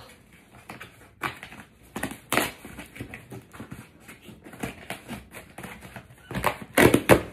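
Scissors slicing the packing tape on a large cardboard box, with scraping and rustling of the cardboard and heavy breathing from the effort. The loudest scrapes come near the end.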